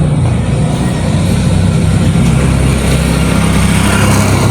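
A heavy engine running steadily at an even, low pitch, without revving.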